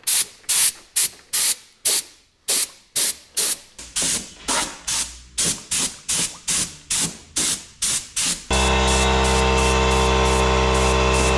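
Gravity-feed paint spray gun hissing in short, quick bursts, about two to three a second, as base coat is dusted on lightly. About eight and a half seconds in, a small air compressor starts and runs with a steady hum under the spraying.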